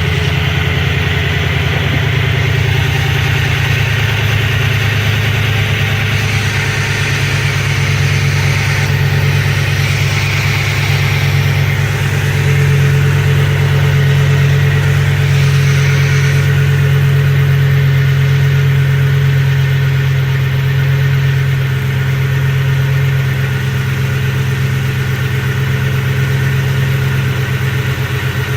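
2007 Ford F-150's 4.6-litre two-valve V8 idling steadily while it is being checked for a cylinder 6 misfire (code P0306).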